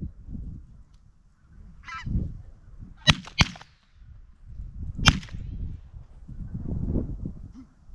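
Three shotgun shots: two in quick succession about three seconds in, a third about two seconds later. A single goose call comes just before them, and wind rumbles on the microphone throughout.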